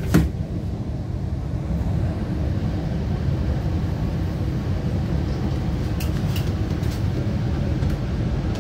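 MTR Kwun Tong line C-Train pulling out of a station, heard from inside the car. A sharp knock from the doors shutting comes just after the start, then the steady low rumble of the train getting under way, with a few light clicks around six seconds in.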